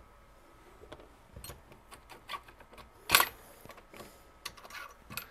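Metal parts of an airsoft M4's front barrel assembly being handled and slid apart: scattered light clicks and rattles, with one louder knock about three seconds in.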